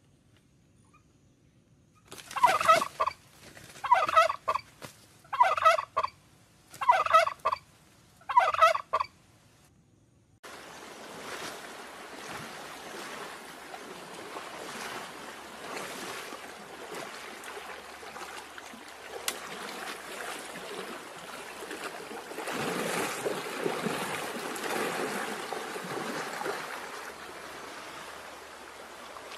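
Five loud calls from a fowl, turkey-like, about a second and a half apart. From about ten seconds in they give way to a steady rushing noise, which grows louder near the end.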